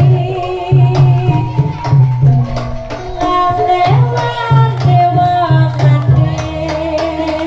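Live Javanese jaranan music: kendang hand-drum strokes in a steady, repeating pattern under a wavering, sustained melody line.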